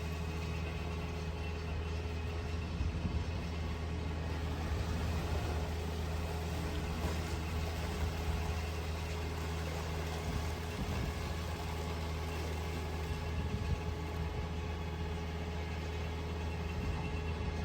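Steady low machine hum, a motor or engine running evenly without change.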